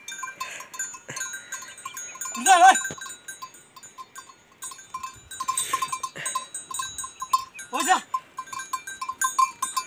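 A ploughman's drawn-out calls to a yoked pair of oxen pulling a wooden plough: two loud calls, about two and a half seconds in and near the end, over a constant light high tinkling. A short hiss comes in the middle.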